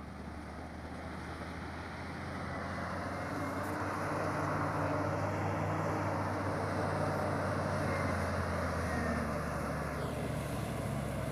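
Engine of a heavy snow-clearing machine running steadily under load as it works through avalanche snow, growing louder about three seconds in.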